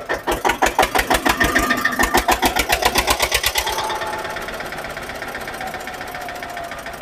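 Eicher 242 tractor's diesel engine running with a loud, rhythmic knock, about six beats a second. From about four seconds in it runs quieter and smoother.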